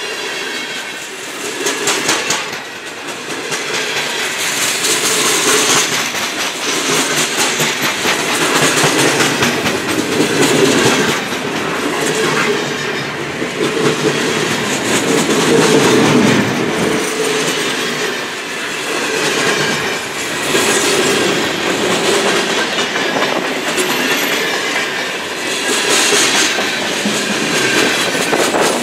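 Freight cars of a long mixed freight train rolling past close by: steel wheels rumbling on the rails with a continuous run of clicks and clacks.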